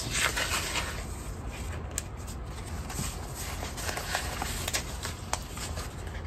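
Paper sticker sheets rustling as they are leafed through and handled, with a few short sharp clicks of the sheets.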